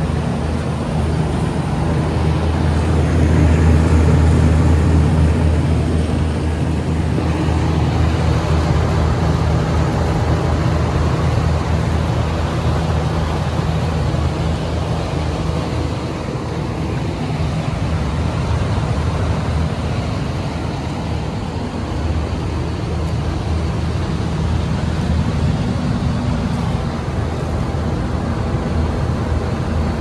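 Residential air conditioner condensing units running in turn, a Ducane, then an ICP and a York side-discharge unit: a steady low hum under the rushing of the condenser fans, loudest a few seconds in.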